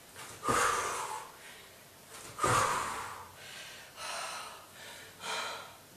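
A woman breathing hard during frog jumps, with four forceful exhales spaced about one and a half to two seconds apart. The first two are the loudest and each carries a low thud.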